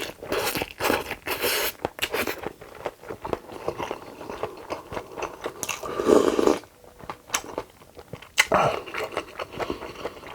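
Close-miked eating sounds of a person chewing mouthfuls of rice and food, with many small wet clicks, plus a louder, longer sound about six seconds in and again about eight and a half seconds in.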